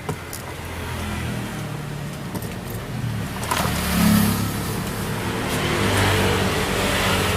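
An engine running, its pitch and speed shifting and its sound swelling about four seconds in.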